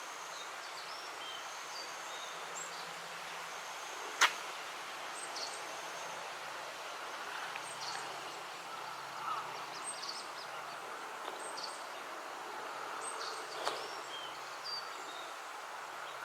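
Little grebe chicks giving scattered, faint, high-pitched peeps while begging for food, over a steady background hiss. A single sharp click comes about four seconds in, and a smaller one near the end.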